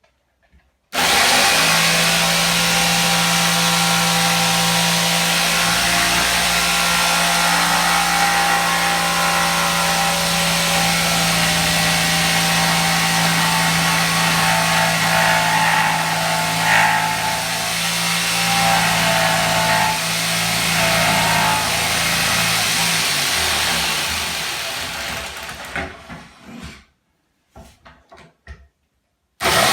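Electric power saw running steadily while cutting skirting board. It winds down about three-quarters of the way through, gives a few short bursts, and starts up again at the very end.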